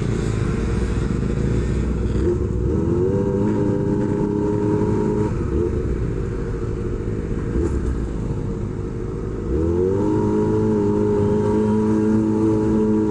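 Kawasaki Ninja ZX-25R's 250 cc inline-four running through an SC Project H2 exhaust under way. The revs climb and hold a few seconds in, ease off around the middle, then rise again near the end and hold steady.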